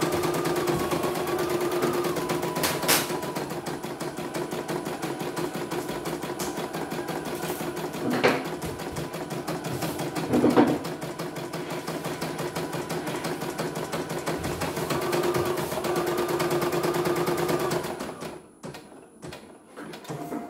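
CNY E900 portable embroidery machine stitching at speed: a rapid, even needle rhythm over a steady motor hum, with a few louder knocks. Near the end the stitching stops as the design finishes, leaving a few clicks.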